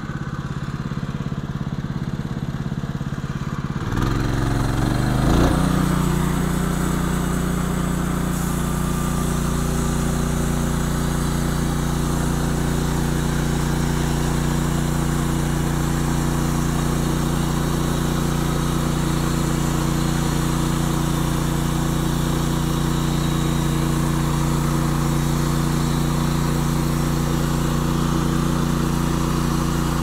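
Gas engine of a Norwood LM29 portable band sawmill running at a low speed, then throttling up about four seconds in, and running steady as the band blade saws through a log.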